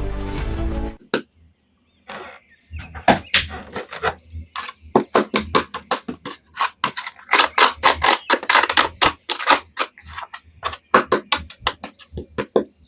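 Background music cuts off about a second in. From about two seconds on comes an irregular run of sharp clicks and taps, several a second, as hard plastic action figures and their packaging are handled during unboxing.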